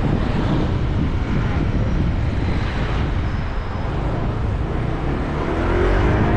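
Motorcycle engine running while riding, under a heavy low rumble of wind on the microphone; about five seconds in, the engine note rises as it picks up speed.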